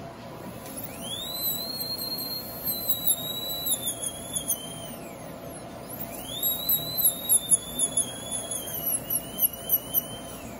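High-speed dental air-turbine handpiece trimming a crown held in the fingers, run twice with a pause of about a second between. Each run spins up to a high whine that dips and wavers in pitch as the bur bites, then winds down.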